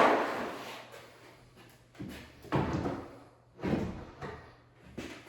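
Wooden knocks and clunks from an interior door and its door frame being handled and set into the opening. The first knock is the loudest and rings on for about a second, and five smaller bumps follow at uneven gaps.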